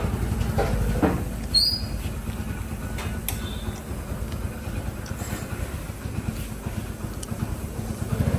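Motor scooter's small engine running at idle: a steady low putter, with a few light clicks.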